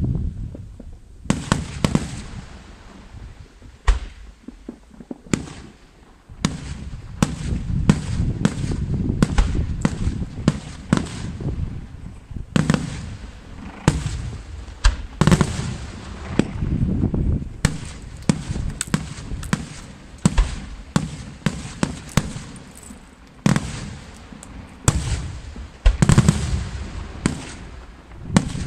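Aerial fireworks display: shells bursting in quick succession, dozens of sharp bangs with rumbling echoes between them. There is a brief lull about five seconds in before the bursts come thick again.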